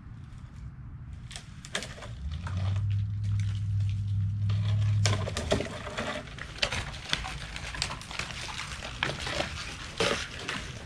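Wood cracking and snapping in a long run of sharp crackles, with a louder burst about five and a half seconds in, as a section of half-dead cottonwood breaks and falls through branches. Before it, a steady low hum lasts about three seconds.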